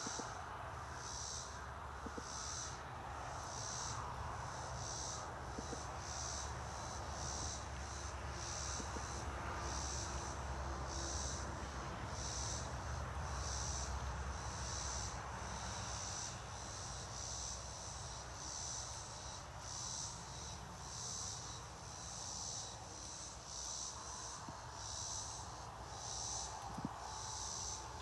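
An insect chirping steadily outdoors: short, high-pitched calls repeated about once a second, over a low background rumble.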